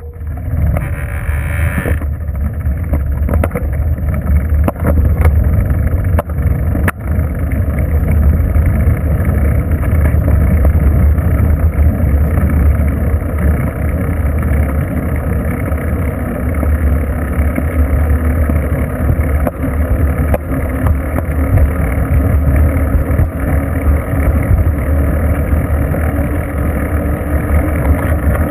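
Wind buffeting the microphone of a bicycle-mounted camera while riding on a road, with tyre and road noise: a loud, steady low rumble with a few faint clicks.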